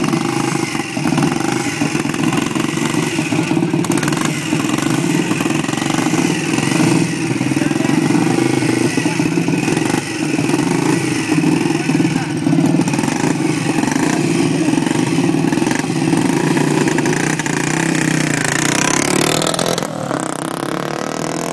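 Vintage Aermacchi single-cylinder scrambler motorcycle engine running steadily at idle, then revving up near the end as the bike pulls away.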